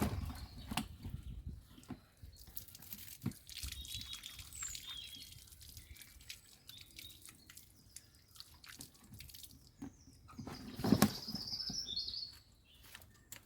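Water dripping and splashing as hands are rinsed of birch-leaf soap lather, with scattered drips and a louder splash about eleven seconds in. Birds chirp now and then in the background.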